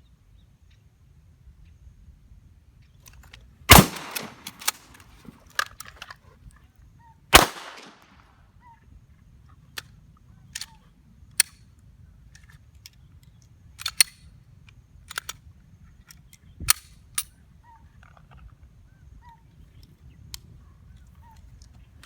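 Gunfire from a Mossberg 590 pump shotgun and a 9 mm Glock 19X pistol. Two loud shots come a few seconds apart, each with a ringing tail, followed by a scattering of sharper, quieter reports and clicks.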